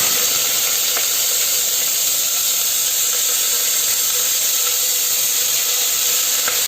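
Sliced onions sizzling in hot oil in a pressure cooker, a loud steady hiss that cuts off suddenly at the end.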